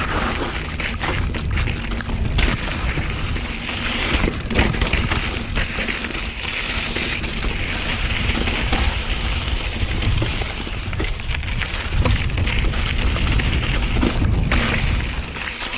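Mountain bike ridden over a rocky desert trail: tyres crunching on rock and gravel and the bike rattling over bumps, with many short knocks, over a steady low rumble of wind on the microphone.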